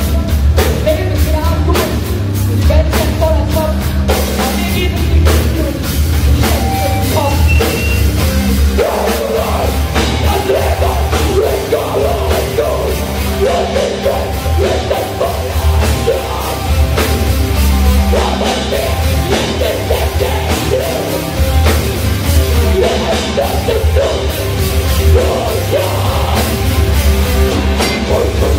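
A live rock band plays loud, heavy music on drum kit, electric guitars and bass guitar, with the lead vocalist singing and shouting over it.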